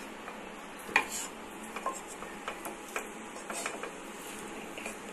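Wooden spatula stirring boiled macaroni in a non-stick frying pan: scattered light scrapes and knocks against the pan, the sharpest about a second in.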